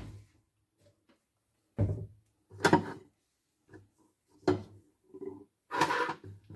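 Kitchen handling sounds: a series of separate knocks and clunks as a milk carton and other items are set down on a glass-ceramic hob. Near the end comes a longer rustling scrape.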